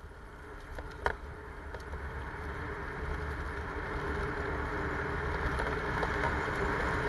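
Mountain bike rolling fast down a grassy slope: tyre noise on grass and wind rumbling on the microphone, growing steadily louder as the bike gathers speed. A single sharp knock from the bike about a second in.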